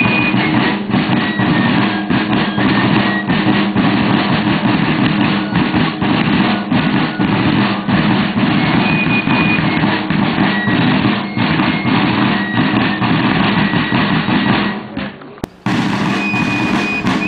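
Drum-driven music with a marching beat of many sharp drum strikes under a steady low hum and short high piping notes. The music drops away briefly about fifteen seconds in, then comes back brighter.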